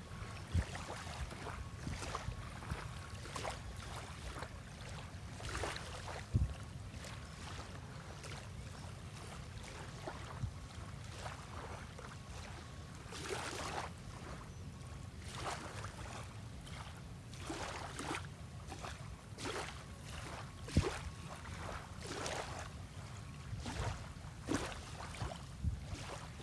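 Gentle wavelets lapping at the water's edge in irregular small splashes, about one every second or so, over a steady low rumble of wind on the microphone.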